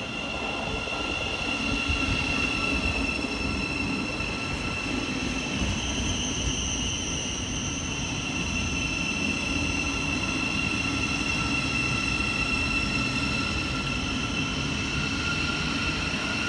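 Thameslink Class 700 electric multiple unit running along a station platform: a steady rumble of wheels on rail under a constant high whine.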